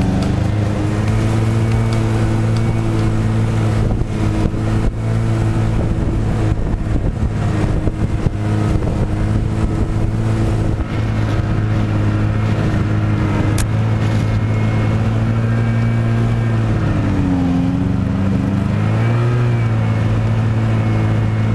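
Snowmobile engine running steadily at travelling speed while pulling a sled along a trail. Near the end the revs dip briefly and then pick up again.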